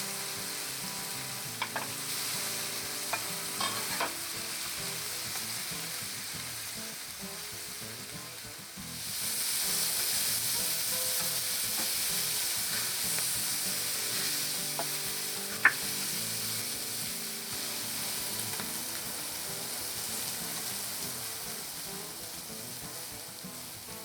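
Jalapeño cheddar sausage frying in oil in a pan, a steady sizzle that grows louder about nine seconds in. A few light clicks sound in the first few seconds, and one sharper click comes about two-thirds of the way through.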